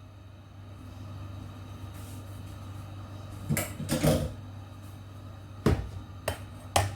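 Cookware being handled on the stovetop in a series of separate knocks and clatters, about five, over a steady low hum.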